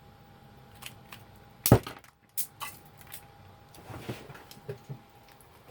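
Clicks, knocks and light rattles of the label machine's plastic and metal parts being handled and pulled apart, the loudest a single sharp knock nearly two seconds in.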